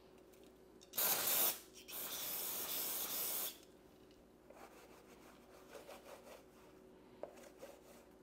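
Aerosol cleaner hissing from a spray can in two bursts onto a shop towel: a short one about a second in, then a longer one of about a second and a half. Fainter rubbing follows as the towel wipes oil off the deck of the engine block.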